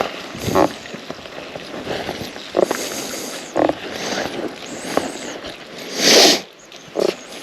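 Blood-tracking dog sniffing in short bursts as it works a scent trail, over footsteps crunching through dry leaves and brush, with a louder rustle about six seconds in.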